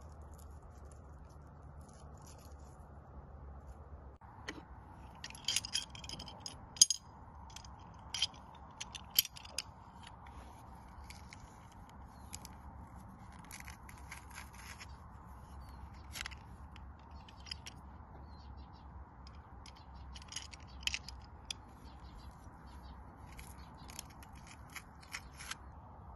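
Food-prep handling sounds: scattered clicks, scrapes and knocks from garlic being cut on a wooden board and crushed in a metal garlic press. The two sharpest knocks come about seven and nine seconds in.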